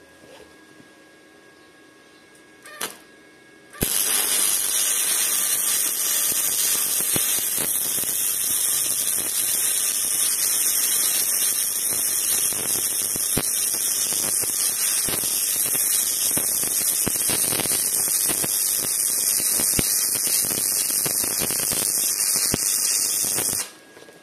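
Flux-core arc welding with a Parkside PIFDS 120 B2 inverter welder: the arc strikes about four seconds in and burns with a steady hissing crackle for about twenty seconds, then stops. The machine is run at a high setting that the welder finds to be too much current.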